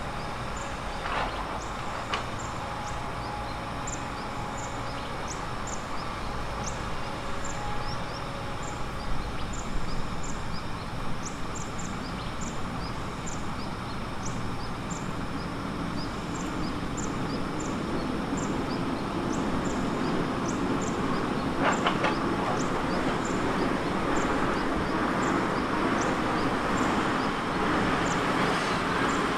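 Heavy construction machinery running: a steady diesel rumble with a few metal clanks, growing louder over the last third. Short high squeaks repeat irregularly throughout.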